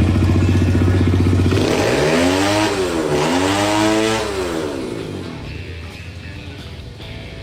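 An engine running steadily, then revved up and back down twice before fading away.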